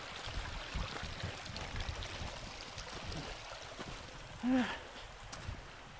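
Footsteps on the loose stones of a shallow riverbed over a steady trickle of water, with one short voiced sound from a person, rising then falling, about four and a half seconds in.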